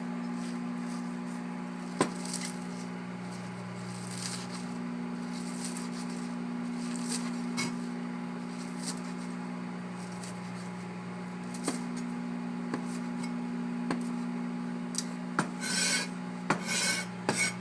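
Microwave oven running with a steady low hum while baby spinach is cut up by hand with a knife: occasional sharp taps on the board and a quick run of cutting strokes near the end.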